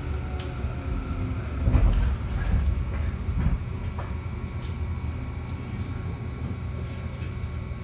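A 211 series electric train running, heard from inside the car: a steady rumble of wheels on rail, with a few sharp clicks and a louder clatter about two seconds in.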